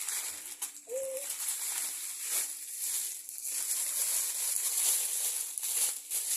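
Gift wrapping paper crinkling and tearing as a present is unwrapped, a dense run of crackling rustles.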